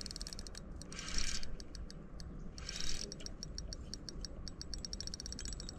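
A spinning reel's drag clicking rapidly as a hooked carp pulls line off. The drag is set deliberately light so the fish can tire. The clicks come in runs that speed up later, with two short rushes of noise about one and three seconds in.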